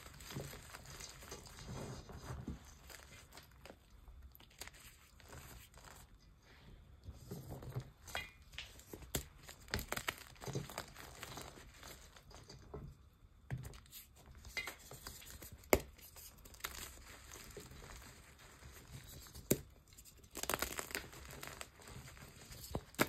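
Hands squeezing and crumbling gym chalk blocks and cornstarch powder in a metal bowl: soft, irregular crunching and crinkling of powder and chalk crumbs, with a few sharper cracks as pieces of chalk block break.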